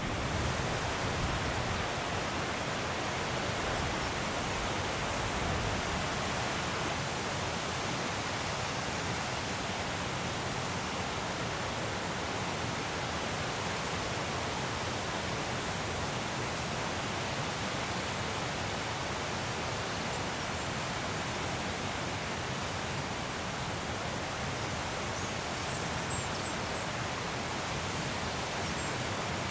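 Waterfall's falling water rushing in a steady, unbroken wash of noise.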